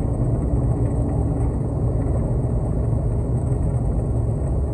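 Concrete mixer truck's diesel engine running steadily, a low, unbroken rumble.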